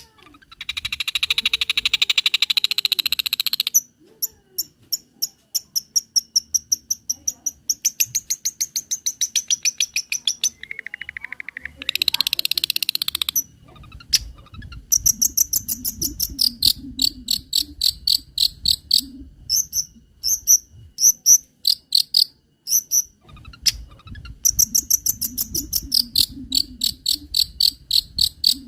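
Long-tailed shrike singing a varied mimicry song. It opens with a buzzy trill of about three seconds, then rapid runs of high ticks, a brief whistled tone and another short buzz, followed by long series of quick, high, insect-like chirps.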